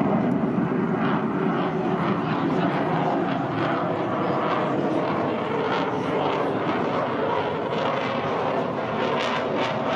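Jet noise from a Eurofighter Typhoon FGR4's two EJ200 turbofan engines as the fighter manoeuvres in a flying display: a loud, steady rushing roar.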